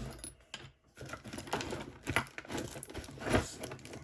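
Irregular small clicks and knocks of a lock cylinder and hand tools being handled and set down on a work surface, with one louder knock near the end.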